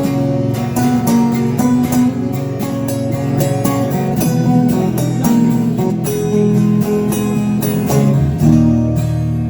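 Live instrumental passage with guitars: strummed chords and held notes changing every second or so, with no singing.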